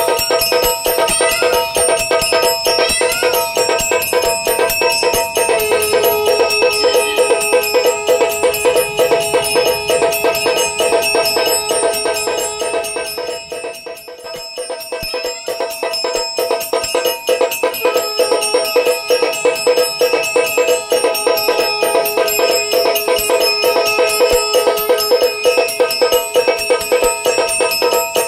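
Automatic aarti machine running: a mechanical striker rings a small brass bell in rapid, steady strokes while a steel-shelled drum is beaten, the bell's tones ringing on throughout. A long held note comes in twice over the ringing, and everything dips briefly about halfway through.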